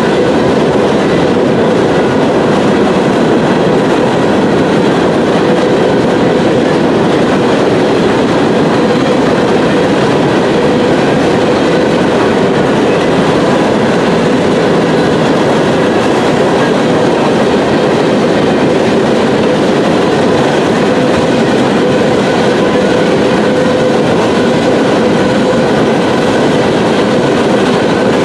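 A freight train of open-top coal hopper cars rolling past at steady speed: a continuous rumble of wheels on rail, with faint steady ringing tones over it.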